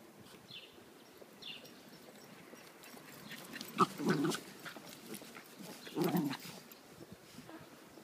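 Two West Highland white terriers playing, with two short loud dog vocalizations, one about four seconds in and one about six seconds in.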